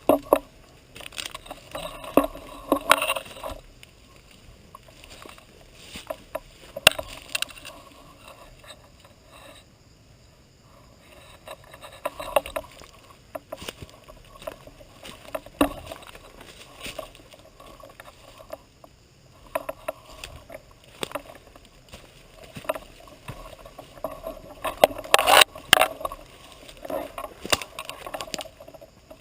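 Irregular rustling and crunching of a player moving on foot in a ghillie suit, with scattered sharp clicks and a louder burst of rustling a little before the end.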